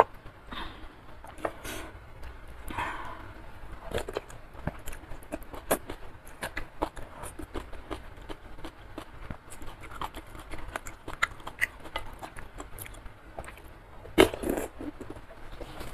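Close-miked eating sounds: wet chewing with many small mouth clicks while stirring a bowl of curry instant noodles, then a loud slurp of noodles from a wooden spoon near the end.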